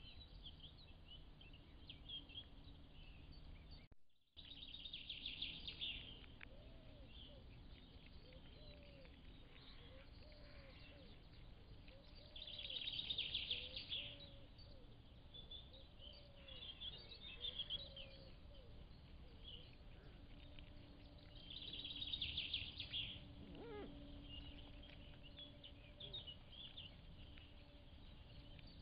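Songbirds singing over a steady low background hiss. One bird's loud, high phrase is repeated three times, roughly nine seconds apart, while a quieter run of short, low arching notes repeats about once a second through the middle. The sound cuts out briefly about four seconds in.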